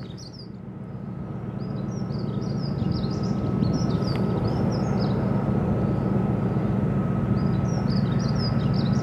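Low, steady engine drone from a harbour tug and a large car carrier under way, swelling back up over the first few seconds. Small birds chirp over it in short repeated phrases, and a faint steady high whine sits underneath.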